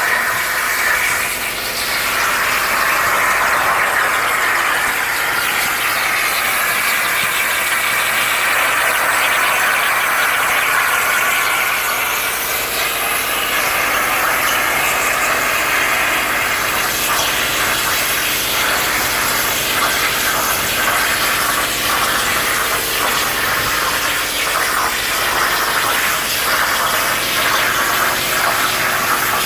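CNC plasma cutter torch cutting, a steady loud hiss of the plasma arc and its air stream.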